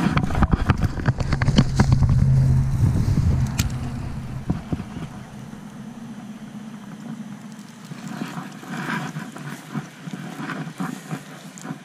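Wind rumbling on the microphone, loudest in the first few seconds, with knocks and clicks from hands handling a baitcasting rod and reel.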